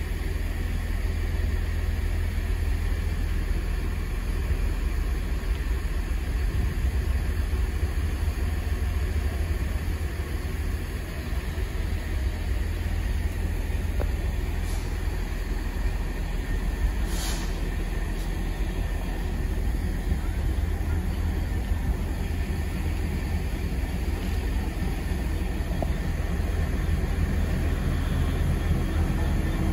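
Class 66 diesel-electric freight locomotive's two-stroke V12 engine running as the loco approaches slowly, a steady low rumble that grows slightly toward the end.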